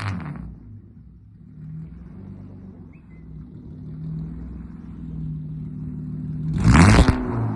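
Straight-piped BMW E30 wagon's exhaust: revs fall away at the start to a low, steady drone, then a short, loud rev near the end.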